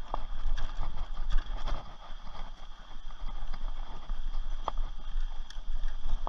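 A Rocky Mountain Thunderbolt mountain bike riding fast over a dirt trail: tyre noise on dirt and irregular rattles and knocks from the bike as it runs over bumps.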